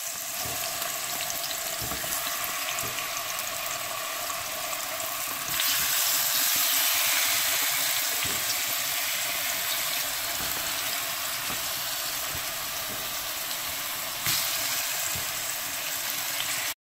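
Seasoned chicken pieces sizzling steadily in a hot frying pan. The sizzle grows louder about a third of the way in, eases back, and cuts off abruptly just before the end.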